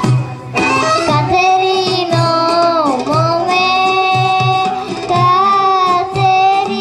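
A girl singing a Bulgarian folk song into a microphone, amplified over an instrumental accompaniment with a steady beat. Her voice comes in about half a second in, with long held notes and a downward bend in pitch about three seconds in.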